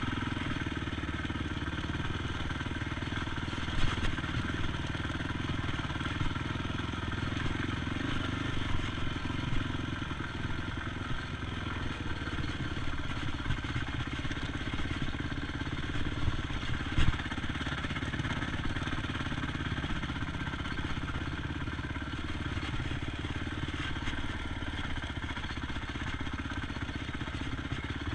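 ATV engine running at a fairly steady speed while riding, with a few sharp knocks and clatters of the machine over the ground.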